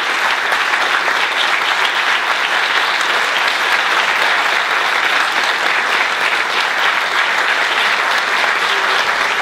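Large audience applauding steadily, a dense, even clapping that neither builds nor fades.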